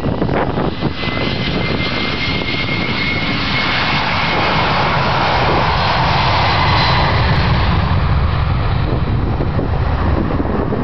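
Airbus A310 tanker's twin turbofan engines at take-off power during the take-off roll: a loud jet roar with a steady high whine. It swells to its loudest as the aircraft passes, about six to seven seconds in, then turns to a deeper rumble as it moves away.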